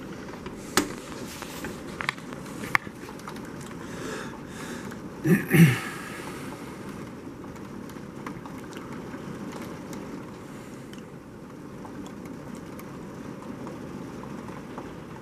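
Steady rain falling, with a few sharp knocks in the first three seconds and a louder two-part scrape about five and a half seconds in. After that the rain sounds duller.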